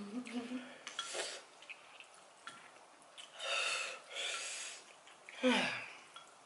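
People eating very spicy ramen noodles: a short hummed "mm" at the start, then hissing breaths through the mouth about a second in and again for a second or so around three to four seconds in, and a short sigh-like voice falling in pitch near the end, their reaction to the chili heat.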